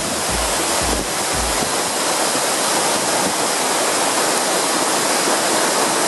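Waterfall rushing steadily, the falling water filling every pitch with an even hiss. A music track's low beat, pulsing about twice a second, stops about a second and a half in.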